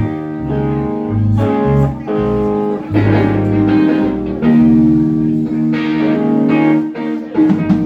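Live band playing an instrumental passage during a sound check: guitar to the fore over low held bass notes.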